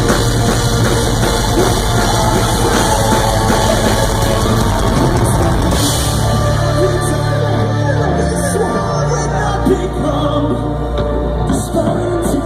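Metalcore band playing live, loud, with singing over distorted guitars and fast drumming. About halfway through the drumming thins out and sustained low chords carry on.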